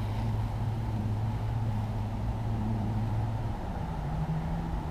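An engine running steadily with a low hum that steps up in pitch about three and a half seconds in.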